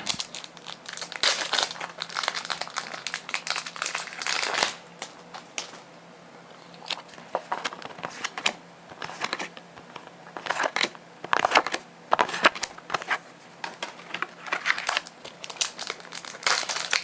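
Foil booster-pack wrappers crinkling in repeated bursts as trading-card packs are handled and opened, with a quieter stretch about a third of the way in.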